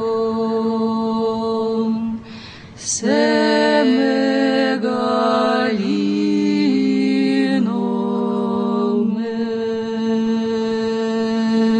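Unaccompanied Orthodox church chant: voices holding long notes and stepping from pitch to pitch, with a short break about two seconds in before the singing resumes.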